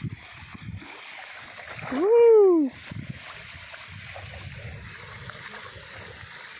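Water splashing and lapping at the river's edge as a hooked catfish is landed by hand. About two seconds in, one loud drawn-out whoop rises then falls in pitch.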